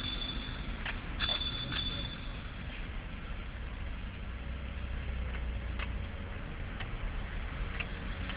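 Bicycle riding through traffic: steady road noise with a low rumble, scattered clicks and rattles, and a high steady whine twice in the first two seconds.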